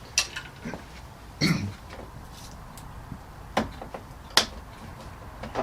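A few sharp plastic clicks and knocks as bumper trim clips and fasteners are worked loose by hand, with a short throat-clear about a second and a half in.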